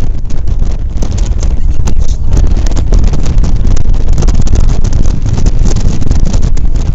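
Strong wind buffeting the microphone on an open boat: a loud, fluttering rumble that covers everything else.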